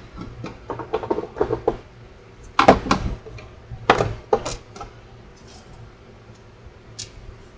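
Small metal clicks and clatter of screws being turned out and the back cover of a cassette deck being handled, with a quick run of clicks at first and two louder clusters of knocks about three and four seconds in.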